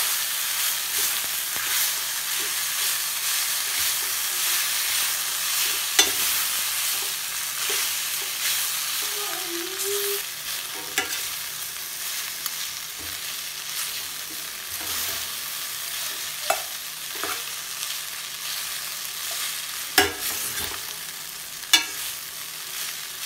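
Chicken noodles with green peppers and onion stir-frying in a stainless steel pan: a steady sizzle as they are tossed, with a few sharp clicks from the metal utensil.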